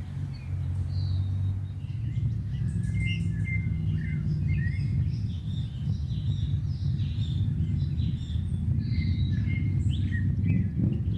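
Several small birds chirping and calling, with short overlapping chirps throughout, over a steady low rumble.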